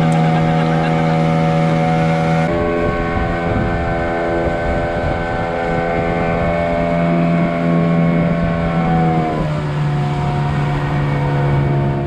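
Outboard motor of a small river boat running steadily under way, with water and wind noise beneath it. Its pitch shifts suddenly about two and a half seconds in, then slides lower about nine seconds in as the engine slows.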